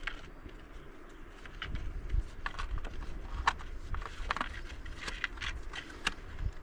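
Scattered light clicks and rustles of a collapsible stick clip being handled and folded up, with a low rumble underneath.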